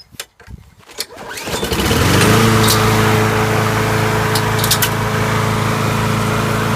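Self-propelled walk-behind lawnmower's small gas engine pull-started on its repaired recoil starter: a few clicks, then it catches about a second in, comes up to speed and runs steadily, a sign the pull-start repair worked.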